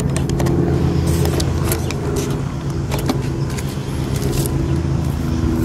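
An engine running at a steady idle, with scattered light clicks and rattles over it.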